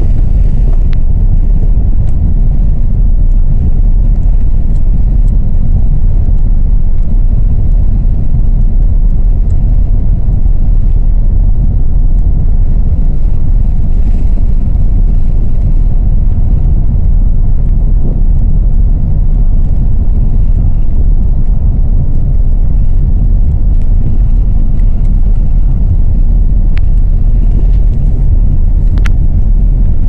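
Loud, steady low rumble of a moving road vehicle: engine and road noise heard from inside the vehicle, with a couple of faint ticks near the end.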